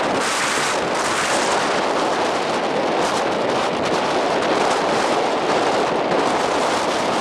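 Wind on the microphone: a loud, steady rushing noise with no pauses.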